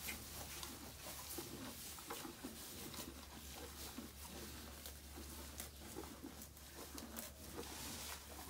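Faint, irregular rustles and small clicks from a cow and her newborn Angus calf shifting in straw bedding while the calf nurses, over a low steady hum.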